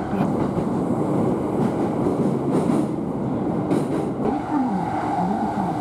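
Limited express train running, heard from inside a passenger car: a steady rumble of wheels on track. A steady whine joins about four seconds in.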